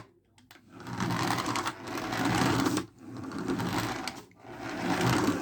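Toy remote-control buggy's small electric motor and plastic gears whirring in four short runs, stopping and starting as the car is driven.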